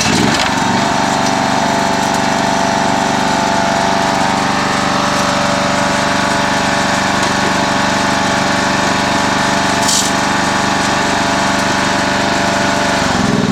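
Riding lawnmower engine running steadily and loudly close by, its note changing near the end.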